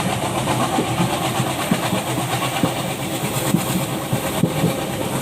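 Diesel-hauled passenger train running, heard from the floor of a coach coupled near its ALCO WDG3A locomotive. A steady rumble of engine and wheels runs throughout, with irregular knocks as the wheels cross rail joints.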